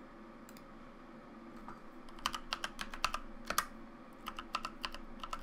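Typing on a computer keyboard: a quick run of keystrokes about two seconds in, then a few more near the end.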